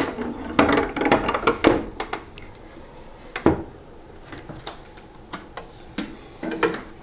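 A string of irregular knocks and clunks as the sewing-machine table and machine are handled, the loudest in the first two seconds and about halfway through.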